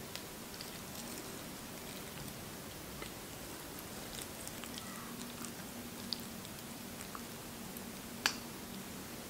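Boiling water poured from a steel pot onto spinach leaves in a glass bowl: faint pattering and light ticks of water on the leaves from about four seconds in, with one sharp click near the end.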